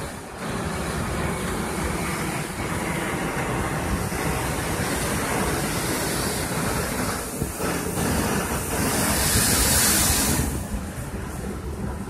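Ocean surf breaking and washing over rocks below a cliff, a steady roar of waves, with a louder hissing surge about nine seconds in.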